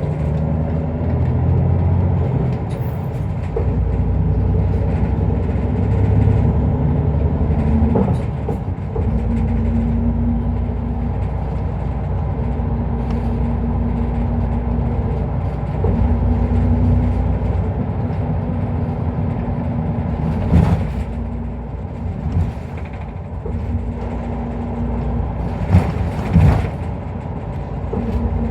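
Isuzu Erga Mio diesel route bus driving, heard from inside the cabin: a steady engine and road rumble, with a faint engine or drivetrain tone that comes and goes. There are a few sharp knocks from bumps, about eight seconds in, near twenty-one seconds, and twice near the end.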